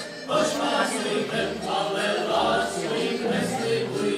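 A group of voices singing together, several people at once.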